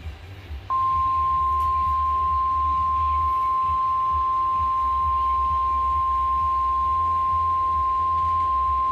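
Weatheradio Canada warning alarm tone: a single steady 1050 Hz tone that starts sharply about a second in and holds unbroken, announcing the severe thunderstorm warning that follows.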